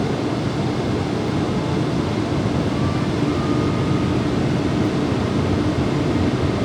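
Steady flight-deck noise of an Airbus A380-800 in descent: a constant hiss of airflow and air conditioning. A faint steady tone comes in briefly about three seconds in.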